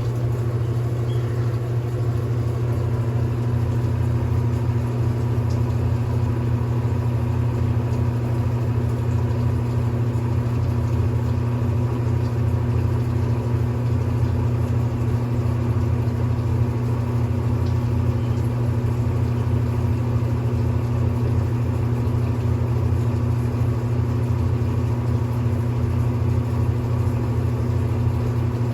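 Brastemp Intelligent 7 kg washing machine in its spin cycle, a steady, even motor drone with a strong low hum. It spins smoothly, with no knocking or banging.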